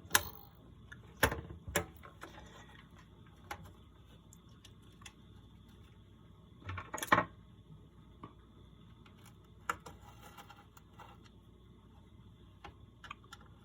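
Scattered small clicks and taps of small metal screws and parts being handled during reassembly of an analog multimeter, with a few sharper knocks in the first two seconds and a short cluster about halfway through. A faint steady high whine sits underneath.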